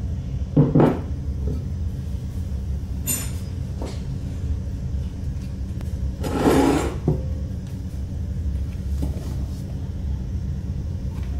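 A glass mixing bowl is set down on a wooden counter with a single knock about half a second in. A longer, louder noisy handling sound follows about six and a half seconds in, over a steady low hum.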